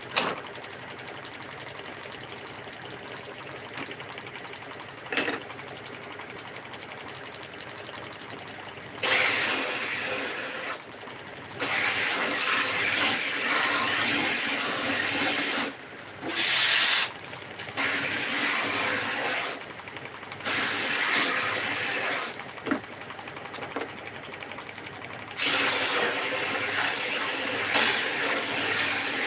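Bench-mounted belt sander running, at first with a steady hum, then with wood pressed against the moving belt from about nine seconds in. This gives a loud sanding hiss in passes of a few seconds each, with short breaks between them, as old varnish is sanded off the wood.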